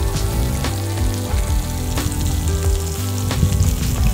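Bacon grease sizzling on the hot metal griddle plate of a charcoal-fired camp grill, with red pepper rings frying in it. Background music with held notes and a steady beat plays over it.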